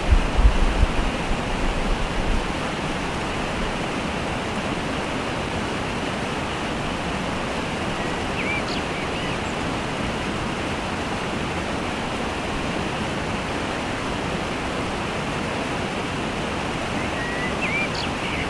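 Waterfall rushing with a steady, even roar of falling water. There are low rumbling bumps in the first two seconds, and a few faint high chirps about halfway through and again near the end.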